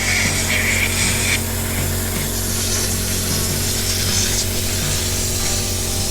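Compressed air from an air line blowing sawdust out of a chainsaw's guide bar and housing, hissing in short blasts: a long one in the first second or so and another around the middle.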